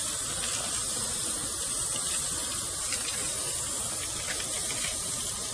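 Pressure washer spraying water from its wand: a steady, even hiss.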